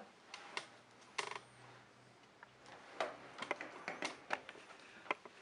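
Scattered clicks and knocks of a kiln controller's cable plug and plastic casing being handled and plugged into a kiln simulator box, the loudest about a second in.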